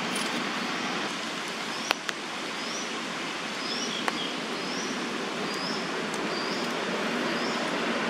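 Juvenile crested goshawk giving a run of thin, high begging calls, about one every two-thirds of a second from a couple of seconds in, soliciting food from its sibling. Behind them is a steady background hiss, with a couple of sharp ticks about two seconds in and one about halfway.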